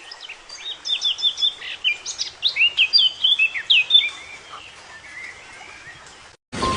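A songbird singing: a rapid run of high chirps and short down-slurred whistles, dense for about four seconds and then thinning to fainter twitters, over a faint background hiss. The clip cuts off abruptly just before the end.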